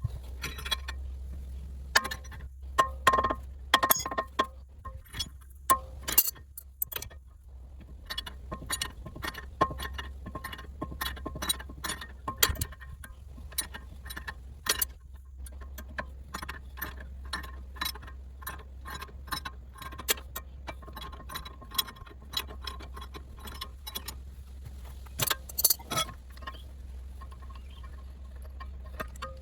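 Metal hand tools at work on a car's front wheel hub: a long run of quick metallic clicks and clinks, with sharper ringing metal knocks near the start and again near the end, over a low steady hum.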